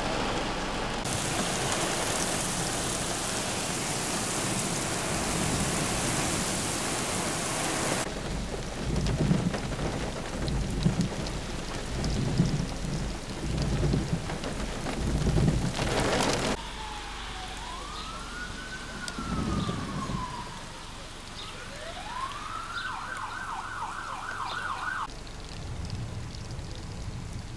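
Heavy wind-driven rain pouring down, with low rumbling thumps coming through the downpour. Then lighter rain, and an emergency-vehicle siren wailing up and down twice before switching to a fast warble.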